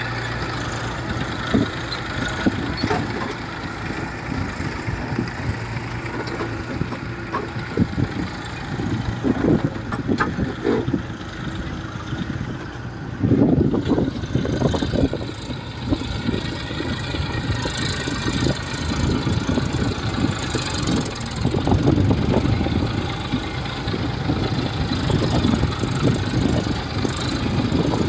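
Massey Ferguson 1035 DI tractor's three-cylinder diesel engine working under load as it hauls a trolley heaped with soil, running steadily with uneven louder swells.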